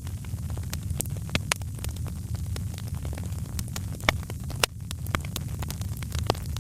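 Wood fire crackling: irregular sharp pops and snaps, a few louder than the rest, over a steady low rumble of the flames.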